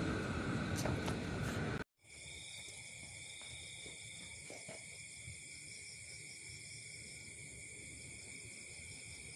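A train's rumble that stops suddenly about two seconds in, followed by a steady chorus of night insects, several shrill high tones held without a break.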